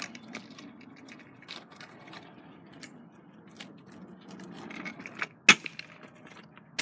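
Scattered light clicks, then a sharp clack about five and a half seconds in as a kick scooter lands a bunny hop on pavement, with another clack near the end.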